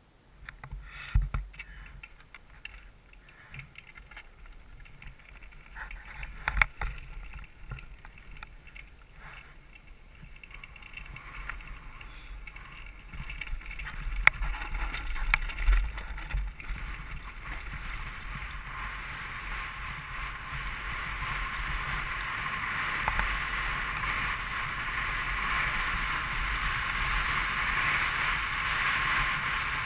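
Mountain bike rolling downhill on a dirt and loose-rock trail: knocks and rattles as the wheels hit stones, with wind on the helmet camera's microphone growing steadily louder as the speed builds.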